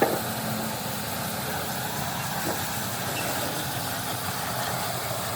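A steady motor or engine drone with a low hum and an even hiss above it, and a short knock right at the start.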